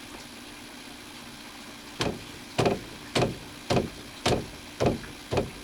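Drain pipe being knocked home into its friction-fit fitting: seven sharp knocks, about two a second, starting about two seconds in.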